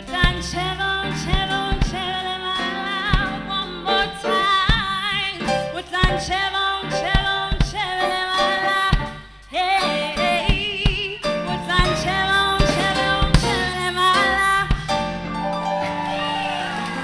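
Soul-jazz band music with singing and drums. It drops out briefly about nine seconds in, then comes back.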